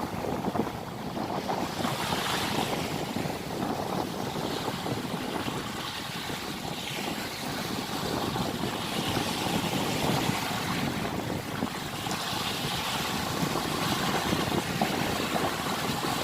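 Red Sea waves washing and splashing, swelling every few seconds, with wind on the microphone.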